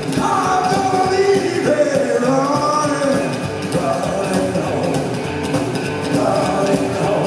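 A live rock-and-roll band plays loudly through a hall PA, with upright bass, drums and electric guitar under a wavering sung vocal line.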